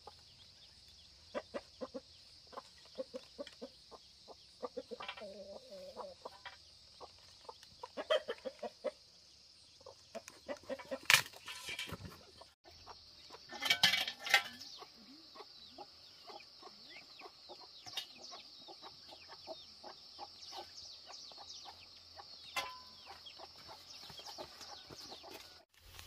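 Chickens clucking on and off, with scattered small knocks and a couple of louder sounds about halfway through, over a steady high hiss.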